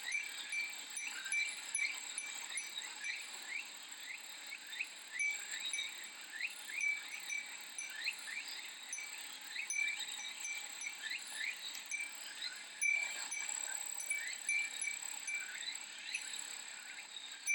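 Cicadas singing: a steady high drone with quick repeating rising chirps, and a furin wind chime tinkling now and then.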